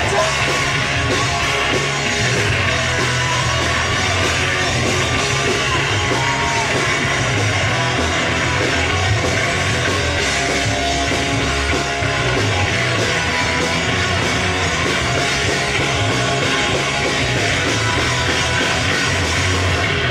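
Punk rock band playing live through amplifiers: a loud, steady, dense stretch of electric guitars and full band.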